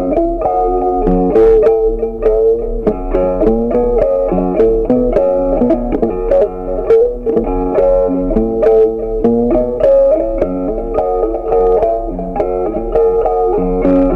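Background instrumental music: a melody of quick plucked-string notes.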